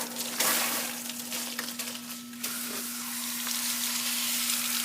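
Water from a garden hose spraying through the fins of an air-conditioner condenser coil, a steady spattering hiss that rinses out dirt and debris. A faint steady hum runs underneath.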